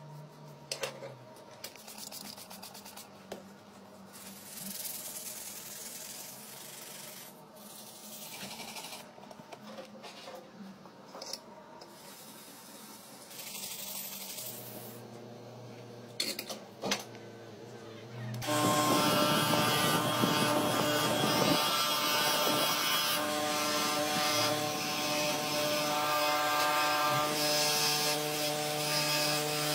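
Rubbing and scraping on a steel knife blade with a few sharp knocks. About 18 seconds in, a small electric grinding or polishing wheel starts and runs with a loud, steady whine against the knife's steel wire-rope handle. It begins to slow just at the end.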